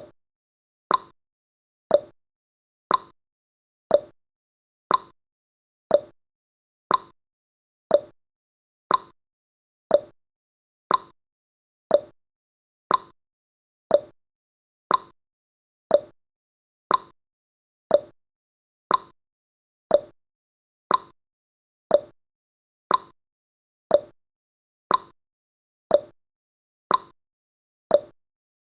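Countdown timer's ticking sound effect: one short, sharp tick every second, alternating between a higher and a lower tick like a clock's tick-tock.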